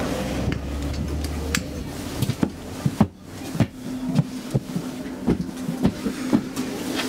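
Footsteps and knocks of people in winter boots stepping aboard an SL X10p commuter train and walking along the car, irregular thumps about twice a second. A steady low hum from the train sets in about halfway.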